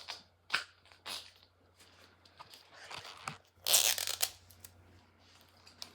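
Toy packaging being peeled and torn off by hand: two short rips, then a longer, louder tear about three and a half seconds in.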